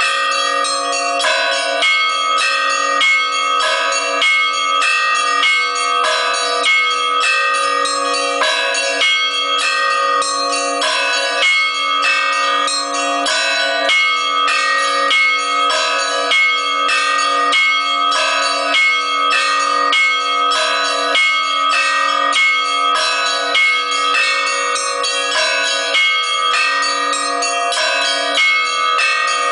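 Orthodox church bells being chimed: a fast, even run of strokes on several small bells, over the sustained ringing of a lower bell.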